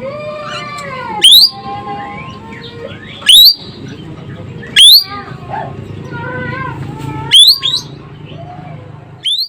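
Ekek keling bird singing: five very loud, sharp whistles that sweep quickly upward in pitch, spaced about one and a half to two and a half seconds apart, with softer wavering whistled notes and chatter between them.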